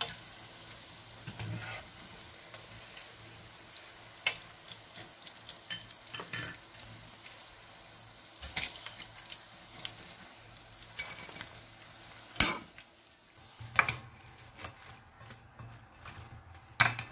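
Meatballs deep-frying in oil, a steady sizzle, with sharp clinks of a wire skimmer against the pan as they are scooped out. About twelve seconds in the sizzle drops away and a few louder knocks follow as the skimmer tips the meatballs into a bowl.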